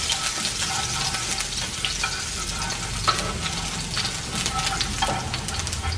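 Chopped onion sizzling in hot oil in a non-stick frying pan, with a steady crackle and scattered pops as it is stirred with wooden chopsticks.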